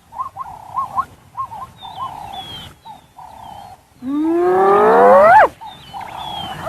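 Spotted hyena calling: a run of short calls, then a long whoop about four seconds in that rises steeply in pitch.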